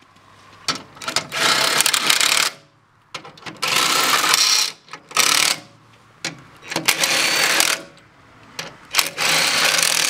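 Cordless impact driver run in five separate bursts of about a second each, tightening the bolts of a second safety clamp on the backhoe loader's lift-arm cylinder.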